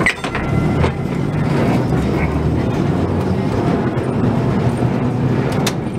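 Birney tram's electric traction motors and gearing running with a steady low hum as the car rolls along the rails, with a few sharp clicks: one at the start, one about a second in, and one near the end.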